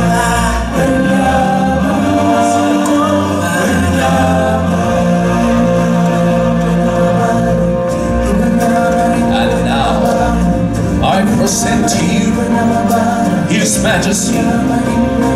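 Several stage singers singing into microphones in harmony over loud amplified backing music with a steady bass.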